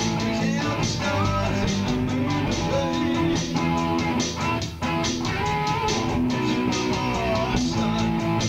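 Instrumental music: guitar over a bass line, the level dipping briefly a little under five seconds in.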